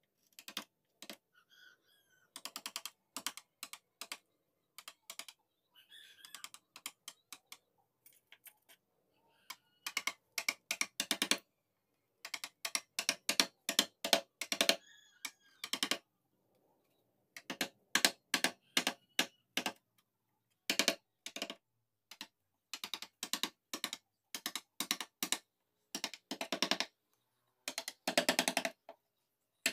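Wood carving chisel cutting into mahogany: quick runs of sharp taps, several a second, broken by short pauses.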